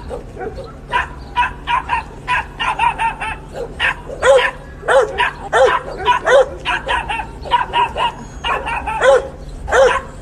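Rapid run of short, high-pitched animal yelps, several a second, each rising and falling in pitch.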